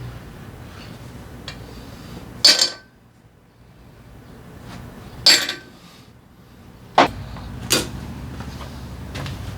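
Metal workshop clanks from hand tools and engine parts being handled and set down, four sharp knocks a second or two apart, the first two ringing briefly.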